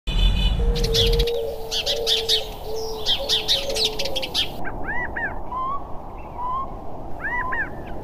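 Several birds calling: a held low note under rapid high chirps for the first few seconds, then repeated arching whistled calls and short rising notes. A brief low rumble opens it.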